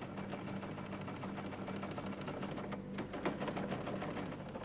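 Teleprinter clattering as it is typed on and prints: a fast, even run of mechanical clicks, with a brief break about three seconds in.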